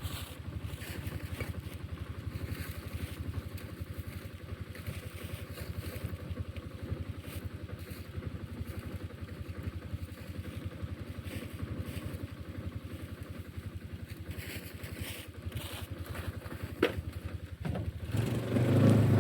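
A vehicle engine running steadily, its firing a fast, even low beat. Near the end there is a sharp click, then the sound grows louder and rougher.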